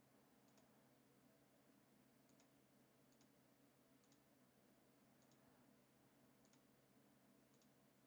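Near silence with about eight faint computer mouse clicks at irregular intervals over a low steady hum.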